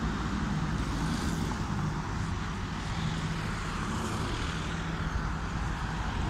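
Steady hum of road traffic, cars going by on a busy road.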